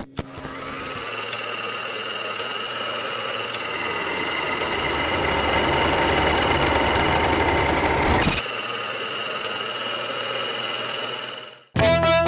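A small motor-driven machine whirring steadily, with a few faint ticks about once a second. It grows slowly louder, drops in level suddenly about eight seconds in, and cuts off abruptly shortly before the end.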